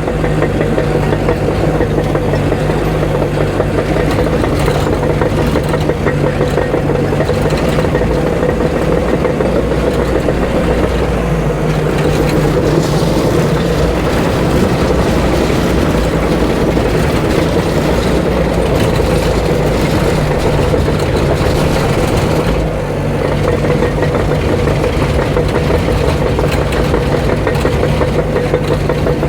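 Diesel engine of a heavy earthmoving machine running steadily at working speed as it strips topsoil, with a brief dip in the engine note about 23 seconds in.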